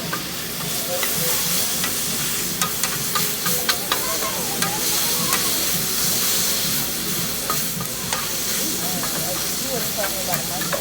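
Food sizzling on a hibachi griddle, a steady hiss broken by many sharp clicks and taps of metal utensils on the hot plate, bunched together a few seconds in and again near the end.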